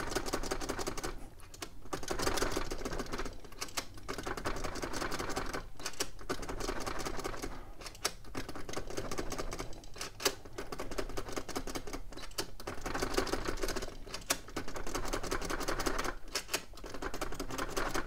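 An impressioning key (magic key) being jiggled up and down under turning tension in a hotel safe's lever lock: fast, fine metallic rattling and clicking in repeated runs of a second or two with short pauses between them. The key's movable fingers are being pushed into the shape that opens the lock.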